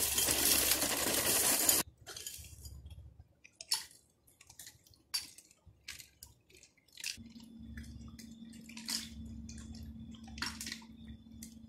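Cornflakes poured from a plastic bag into a bowl, a loud dry rushing rattle that stops sharply after about two seconds. Then come scattered light clicks and taps of a spoon against a plastic cup and bowl. Near the end, thin drinkable yogurt is poured from the cup over the flakes.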